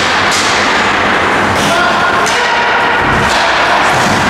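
Ice hockey play on the rink: about four sharp knocks and scrapes of sticks, puck and skates on the ice, over a steady loud hiss of arena noise.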